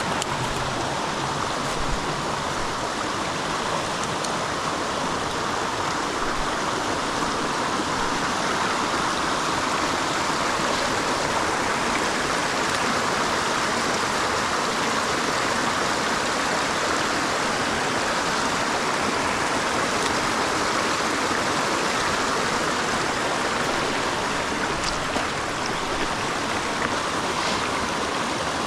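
Creek water running over rocks: a steady, even rush that doesn't change.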